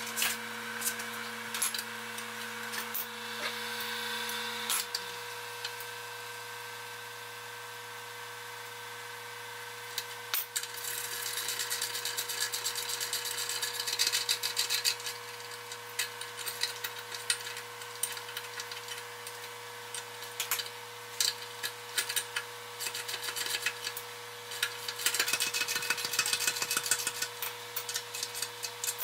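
Hand tools working on a milling machine's levelling feet: scattered metallic clicks and two stretches of scraping with rapid clicking. A steady electrical hum runs underneath, and a low steady tone cuts off about five seconds in.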